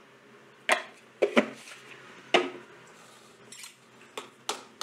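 Steel spoon clinking against a stainless steel bowl while stirring ghee into rice flour: about six sharp, irregular clinks, the loudest in the first two and a half seconds.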